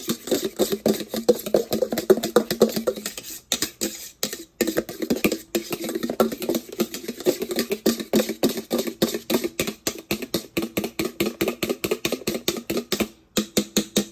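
Egg yolks being beaten by hand in a bowl: a utensil clicking rapidly and evenly against the bowl, about six strokes a second, with a few brief pauses.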